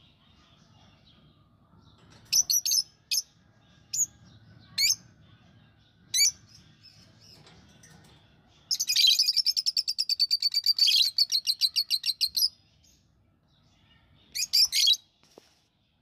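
Budgerigars chirping: a few short, sharp chirps, then a rapid chattering trill lasting about four seconds from a little past the middle, and a last short burst of chirps near the end.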